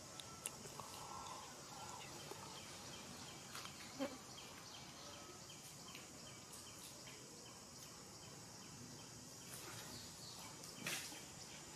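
Faint outdoor ambience with short high chirps repeating about three times a second, under the light rustle and crackle of a baby macaque picking through dry leaf litter. A sharp click comes about four seconds in, and a louder rustle of leaves near the end as an adult macaque steps in.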